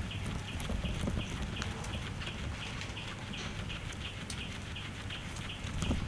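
Guinea pig chewing fresh grass, with sharp little crunching clicks now and then. A rapid, even chirping of about four a second goes on behind it.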